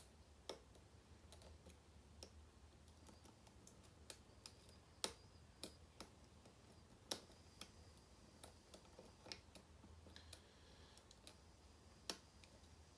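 Small sharp metallic clicks, irregular and spread a second or so apart, from a hook pick and tension wrench working the pins of a pin-tumbler cylinder lock. The lock is in a false set and is being eased with counter-rotation on the tension.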